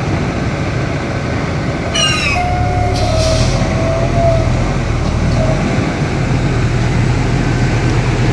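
Excavator's diesel engine running under load, a steady low rumble, with metallic squeals from the tracks or working gear. A quick run of falling high squeaks comes about two seconds in, and drawn-out squeals follow.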